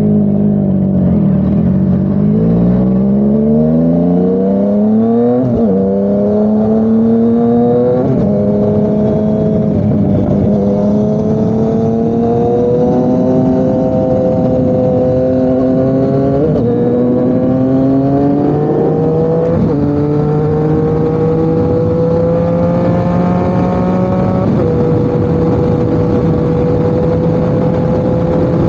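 Yamaha MT-09's crossplane three-cylinder engine through an SC Project CRT exhaust, accelerating hard: the revs climb and drop sharply again and again as it shifts up through the gears. Near the end it settles into a steady cruise.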